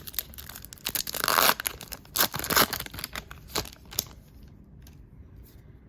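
Plastic wrapper of a baseball card pack being torn open and crinkled, with a burst of tearing and then scattered crackles. The rustling stops about four seconds in.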